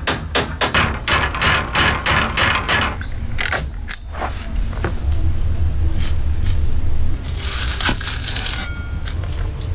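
A hand tool striking in quick succession, about four blows a second for the first three seconds. A scraping or rustling burst follows about seven seconds in.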